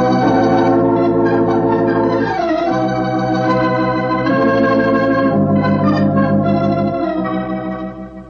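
Organ music bridge: held chords that change every second or two and fade out near the end.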